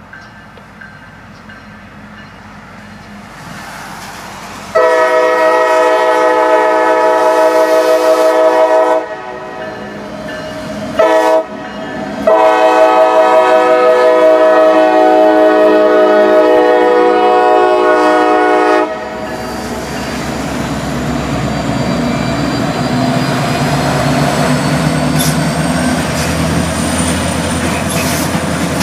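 Diesel freight locomotive's air horn sounding a several-note chord in a long blast, a short blast and another long blast, the end of the grade-crossing signal. Then the locomotives pass close by, with engine rumble and wheel noise on the rails growing louder.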